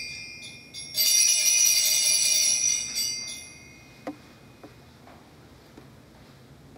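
Altar bells rung at the elevation of the consecrated host, marking the consecration: a ring fading out, then a second bright ring about a second in that dies away over a couple of seconds. A few faint small knocks follow.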